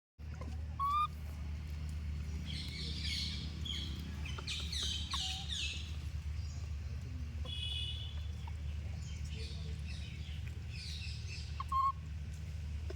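Birds chirping in quick falling runs over a steady low hum, with a short, louder high squeak about a second in and another near the end.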